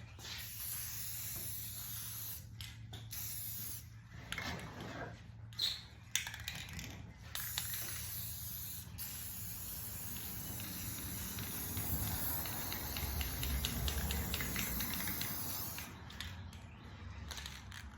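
Aerosol can of metallic spray paint hissing as it is sprayed onto a hubcap: several short passes, then one longer steady spray lasting several seconds.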